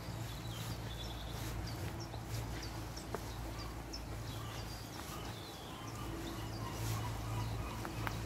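Small woodland birds chirping and calling, with many short high notes scattered throughout, over a steady low rumble. Footsteps on a dirt path.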